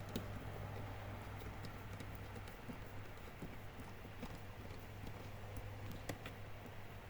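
Scattered light clicks and taps of a laptop hard drive being worked into an HDD caddy, over a steady low hum.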